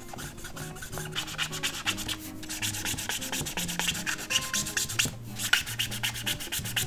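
Chisel-nib calligraphy marker (Manuscript CalliCreative Flexi) scrubbed rapidly back and forth on sketchbook paper, several quick scratchy strokes a second, with a brief pause about five seconds in. The nib is being scrubbed hard enough that it is getting damaged.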